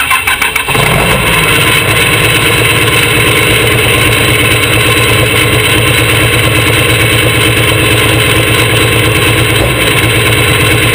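Pro Stock pulling tractor's turbocharged diesel engine starting up. It fires unevenly for a moment, then about a second in settles into a loud, steady idle.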